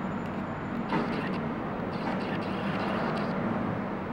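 Steady low rumble and hiss of background noise, with a single sharp click about a second in.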